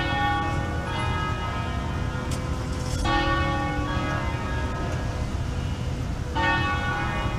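Bells ringing: fresh strikes come about a second in, about three seconds in and near the end, each ringing on and fading. A steady low rumble of engines and traffic lies under them.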